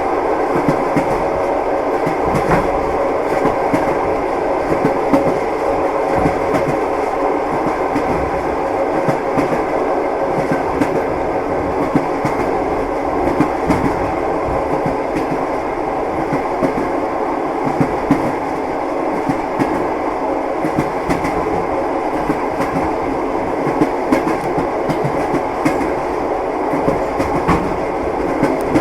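Train wheels clacking over rail joints, with the steady rumble of a moving railway carriage. Frequent, irregular clacks sit over the continuous running noise.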